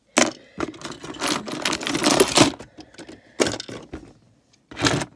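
Lego pieces and minifigures clattering against each other and a plastic storage drawer as a hand rummages through them: a long stretch of rattling, then two short bursts near the end.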